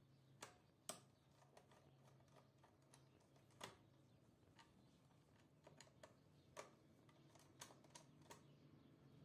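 Faint, scattered clicks and taps of a small screwdriver on the terminal screws of a DIN-rail digital load monitoring relay while a control wire is connected, over a faint steady low hum.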